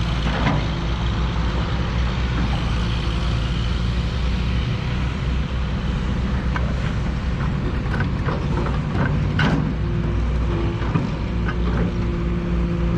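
Backhoe engine running steadily at work, with a few sharp knocks about two-thirds of the way through.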